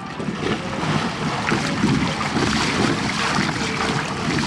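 The plastic shell of an inflatable water-walking ball scuffing, rustling and flexing as someone crawls and slips about inside it, with water sloshing against the outside. The sound is heard from inside the sealed ball, so it is close and rough.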